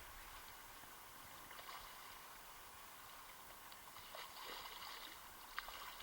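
Faint steady rush of river water, with a few brief soft noises and one sharp click near the end.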